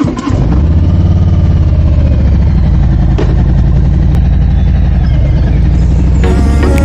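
Harley-Davidson V-twin motorcycle engine just started and idling steadily with a low, even beat. Music comes in near the end.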